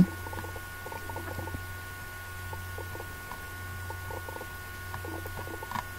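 Room tone: a steady low hum with two faint, thin high tones, plus faint scattered indistinct background sounds.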